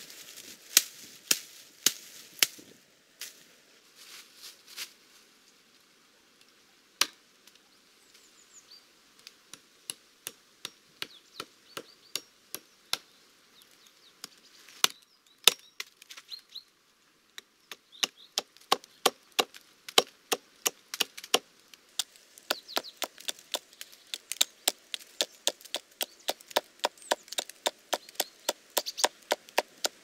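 Hatchet chopping thin stems and brush: sharp separate blows, irregular at first, then quick steady strokes about three a second through the second half.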